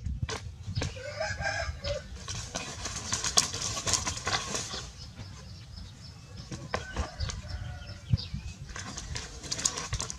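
Dry palm fronds crackling and snapping as they are pulled apart and stripped by hand, with sharp strokes throughout. Chickens call in the background, about a second in and again around seven seconds.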